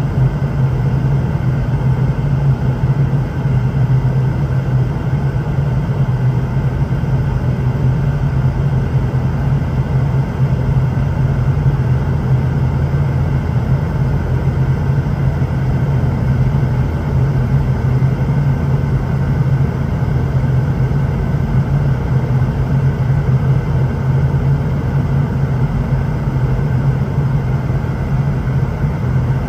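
Steady low drone inside the cabin of a Boeing 717-200, from its rear-mounted Rolls-Royce BR715 turbofan engines and airflow, unchanging throughout.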